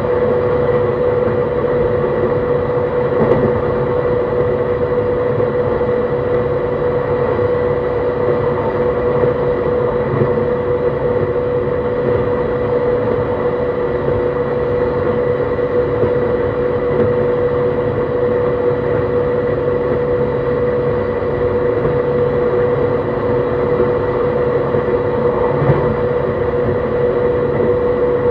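JR East E131 series electric train running at a steady speed: continuous rail and running noise with a steady whine from its drive that holds one pitch throughout.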